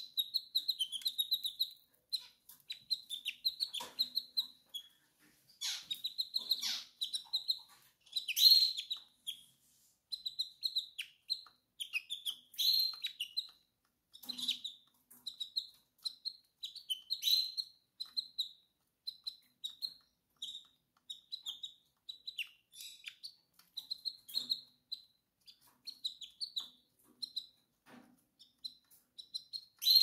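Canary hen chirping in runs of short, high, rapid notes with brief pauses between them. This is the call of a hen in breeding condition soliciting the male to mate.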